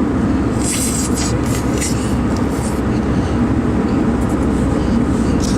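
Steady low rumble of a car heard from inside the cabin, with a few brief light rattles or clicks in the first two seconds.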